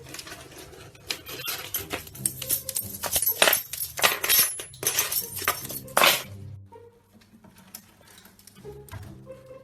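Background music with a dense run of loud clattering and jangling clicks over it for about five seconds, which then stop, leaving the music alone.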